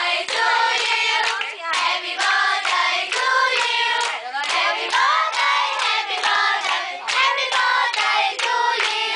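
A group of young voices singing a birthday song together, with hands clapping along in time.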